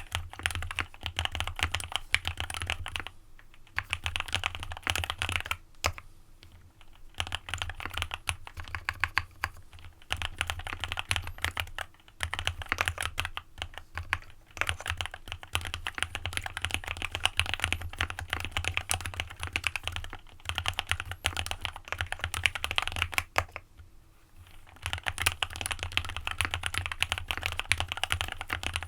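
Typing on an AJAZZ x VARO AC067 mechanical keyboard with lubed Alpaca linear switches and a PE foam mod. Keystrokes come in dense, fast runs, broken by a few short pauses.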